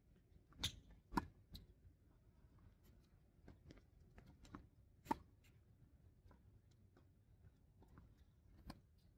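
Tennis balls struck by rackets during a baseline rally, heard as a series of sharp single pops. The loudest come about a second in and about five seconds in, with fainter hits and bounces between.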